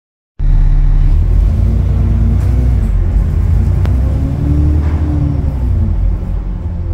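Alexander Dennis Enviro400 double-decker bus heard from on board: its diesel engine and Voith automatic gearbox drone under way, the pitch rising and falling as the bus accelerates and changes gear. The sound cuts in just after the start.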